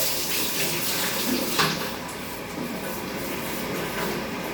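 Water running and splashing in a steady hiss, with a brief knock about one and a half seconds in.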